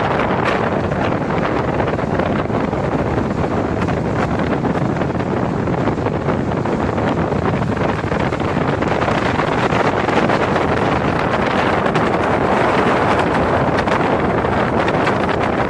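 Speedboat under way at speed: a steady rush of engine and water noise, with wind buffeting the microphone.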